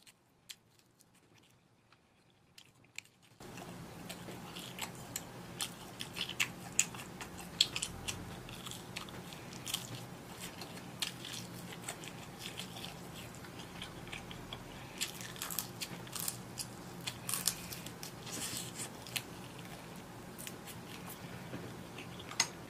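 A person chewing and biting food from a skewer close to the microphone, with frequent sharp crunching clicks. It is near silent for the first three seconds or so, then a steady low hum comes in under the chewing.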